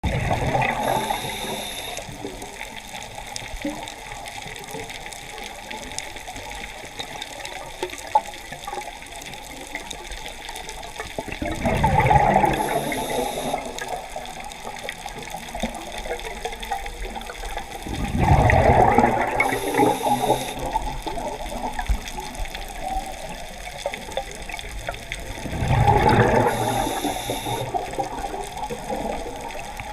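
A scuba diver breathing underwater through a regulator: exhaled bubbles burst out in a loud rush four times, roughly every seven seconds, each with a brief thin high tone, between quieter stretches of steady underwater hiss.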